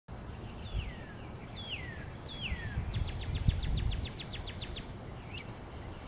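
Northern cardinal singing: three loud whistles that each slide down in pitch, then a fast run of short, even chip notes, about eight a second, and one faint slurred note near the end. A low rumble runs underneath, with a thump about halfway through.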